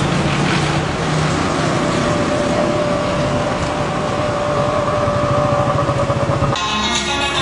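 Engines and road noise of a slow, crowded car convoy, with a steady tone held for a few seconds in the middle; the sound changes abruptly near the end.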